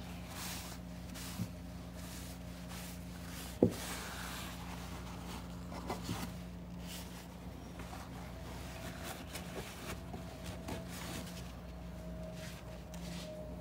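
Faint rubbing and rustling of a rag wiping down finned engine valve covers, over a steady low hum, with one sharp knock about three and a half seconds in.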